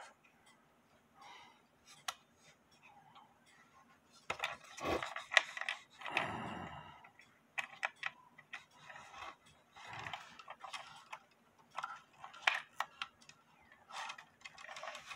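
Irregular light clicks, taps and scrapes of hands working the levers, wires and door of a Hubert Herr musical cuckoo clock's movement while its music lever is being adjusted.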